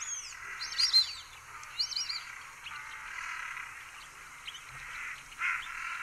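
White-faced whistling ducks calling: a quick run of high, clear whistles in the first two seconds, then fainter whistles later, over a steady background hiss.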